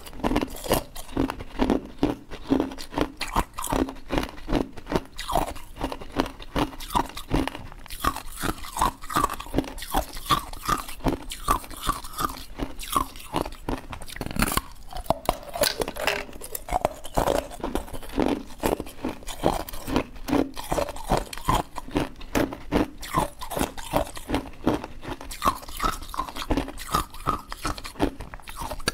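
A person biting and chewing a sheet of hard moulded ice cubes: a steady run of crisp crunches, with one louder crack about halfway through.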